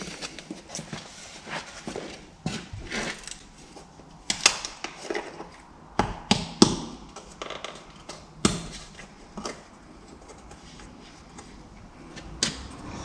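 Scattered knocks and clicks from a plastic engine oil container being handled at the engine of a Massey Ferguson 35X tractor while it is refilled with oil. The loudest knocks fall about six to seven seconds in and again near eight and a half seconds.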